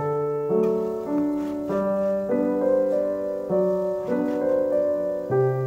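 Background piano music, a gentle run of chords with a new one struck about every half second.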